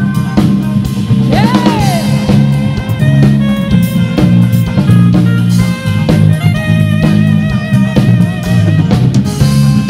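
Live band playing dance music, with drum kit and electric guitar over a steady bass line; one note slides up and back down about a second and a half in.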